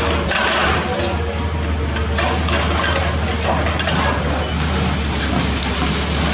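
Hydraulic excavator's diesel engine running steadily under load, with repeated crunching and rattling of broken concrete and rubble as the building is torn down.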